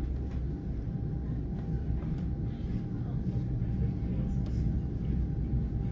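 Interior of an NJ Transit Comet V passenger coach rolling along the track: a steady low rumble from the wheels and running gear, with a faint steady hum and a few light clicks over it.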